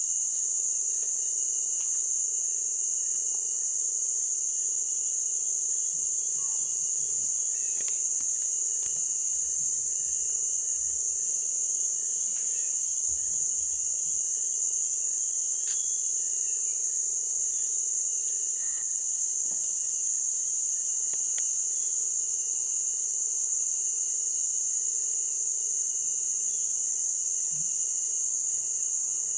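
Insect chorus droning without a break at one high pitch, with fainter steady notes lower down.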